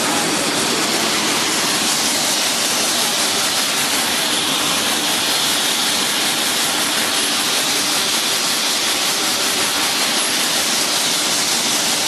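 QX-32 air-bubble vegetable washing machine running: a steady rushing hiss of water and blown air.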